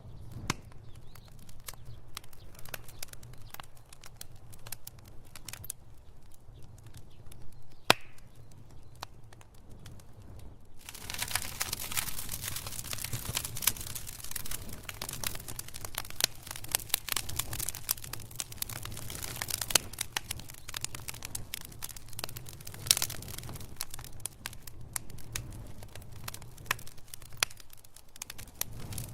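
Wood fire crackling and popping over a steady low rumble. The crackling thickens into a dense hiss for several seconds from about a third of the way in, with a single sharp pop shortly before.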